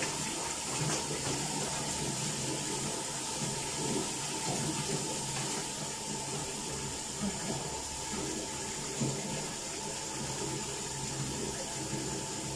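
Water running steadily.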